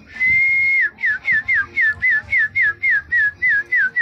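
A person whistling to call the wind: one long held note, then a quick string of short notes, each falling in pitch, about four a second.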